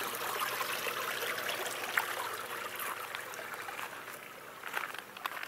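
Water trickling and splashing as it pours from aquaponics drain and overflow pipes into the sump tank, growing fainter about four seconds in. A few light knocks on top.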